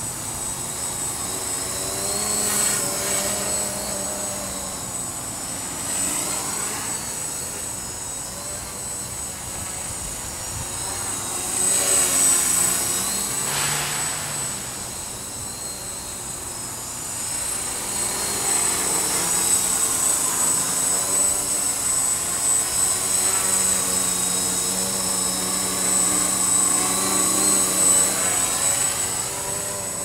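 Witespy quadcopter's electric motors and propellers whining in flight, the pitch wavering up and down as the motors speed up and slow down to hold it steady in high wind. The sound swells louder about halfway through and again through most of the last third.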